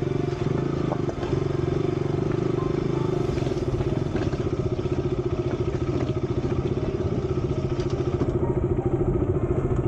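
Motorcycle engine running steadily, without revving, as the bike rolls slowly along a rough dirt track; the exhaust is a fast, even pulse.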